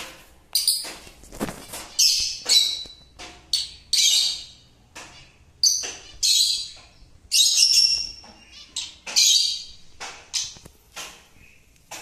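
Rosy-faced (peach-faced) lovebirds calling: loud, shrill, harsh calls, about one a second, each short with gaps between.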